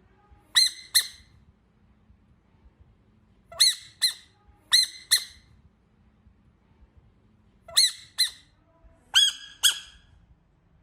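A frog giving short, high-pitched squeaks in pairs: five pairs, each pair two quick squeaks less than half a second apart.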